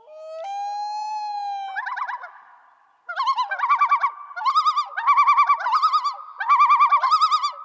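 A high whistle-like tone that glides up and holds for about a second, then breaks into a fast warbling trill. After a short pause about three seconds in, the warble comes back in a run of short bursts.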